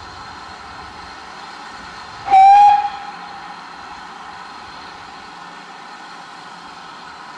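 Short blast on a GWR 5600 class steam locomotive's whistle, about half a second long with a slight rise in pitch, a little over two seconds in, over a steady hiss.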